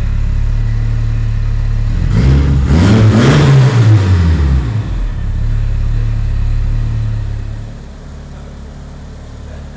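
Mitsubishi Lancer Evolution IX's turbocharged 4G63 four-cylinder running through a newly fitted aftermarket exhaust. It holds a steady idle, is revved once about two seconds in, and settles back within a couple of seconds. About eight seconds in it drops to a quieter idle.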